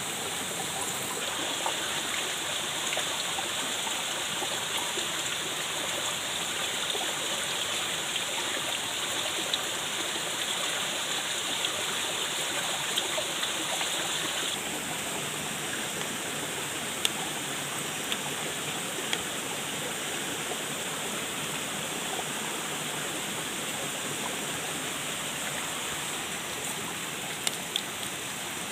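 Steady sizzling of food frying in hot oil, with scattered small pops. The sizzle eases a little about halfway through.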